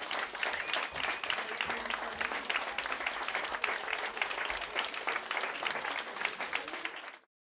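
A crowd applauding, with many hands clapping densely, which cuts off abruptly near the end.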